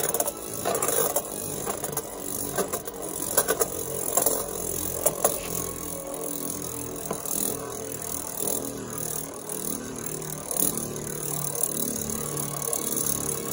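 Two metal-wheeled Beyblade tops, Cosmic Pegasus F:D and Diablo Nemesis X:D, spinning on a plastic stadium floor with a steady whirring scrape. There are a handful of sharp clicks in the first five seconds as they knock against something, then a smoother, even spin.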